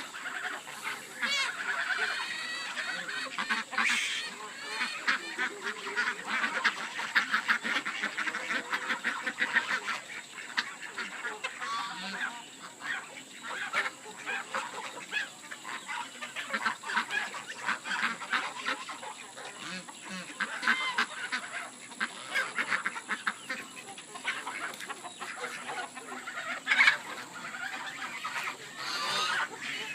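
A flock of geese honking and calling continuously, many short overlapping calls, with other poultry among them.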